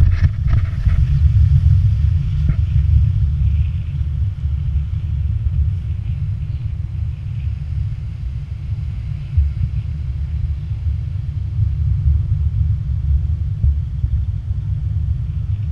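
Steady low rumble of wind buffeting and road vibration on a moving action camera travelling along a wet road, with a few short knocks in the first few seconds.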